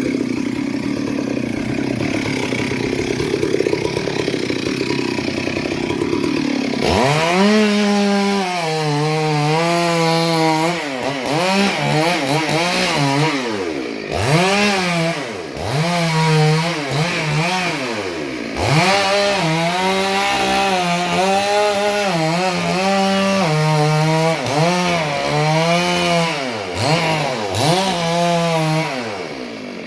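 Chainsaw cutting into a tree, its engine repeatedly revving up and dropping as the chain bites under load. The first several seconds are a coarser, steadier sound before the rise-and-fall revving begins.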